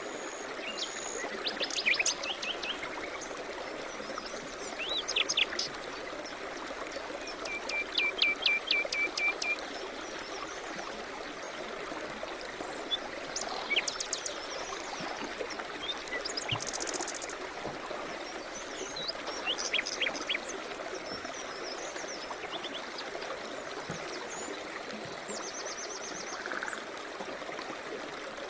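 A river flowing steadily, with small songbirds chirping and trilling over it in scattered short calls; about eight seconds in, one bird gives a quick run of about eight repeated notes.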